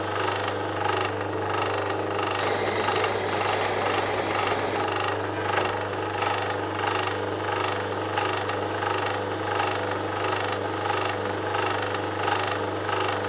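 Drill press running at slow speed with a large 90-degree countersink bit, cutting a countersink in a panel's hole. The motor hums steadily.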